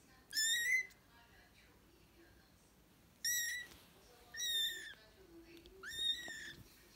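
Young kitten meowing: four short, high-pitched mews, one near the start and three more in the second half.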